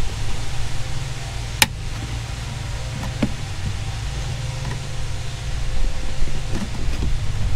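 Metal clicks from long-nose pliers working a spring hose clamp: one sharp click about one and a half seconds in, then a few fainter ticks, over a steady low rumble.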